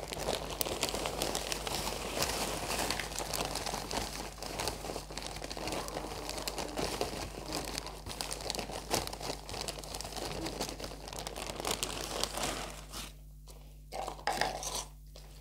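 Large plastic bag of potting soil crinkling and rustling as soil is poured from it into a small plant pot. The crinkling stops about 13 seconds in, and a short burst of handling noise follows near the end.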